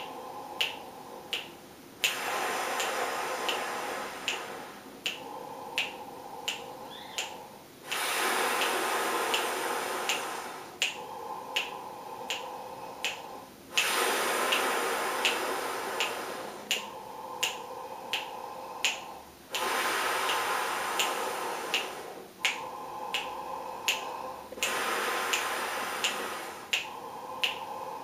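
A man breathing deeply in and out through an open mouth, long airy breaths that alternate louder and softer about every three seconds, in a four-counts-in, four-counts-out Breathing Gym exercise. Finger snaps keep time about every 0.7 s throughout.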